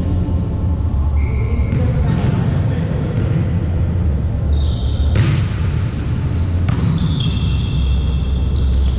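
Indoor volleyball play: sneakers squeaking on the court, and the ball struck sharply about five seconds in and again about a second and a half later, over a steady low rumble of the hall.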